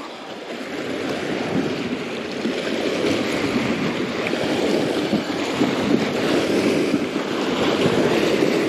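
Small lake waves washing and breaking against a rocky, sandy shore, a steady wash with wind buffeting the microphone.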